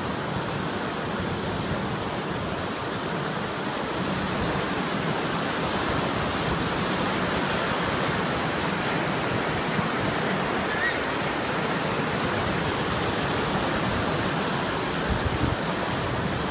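Oak Creek in flood, high and fast, its churning water rushing steadily over a low creek crossing and around rocks.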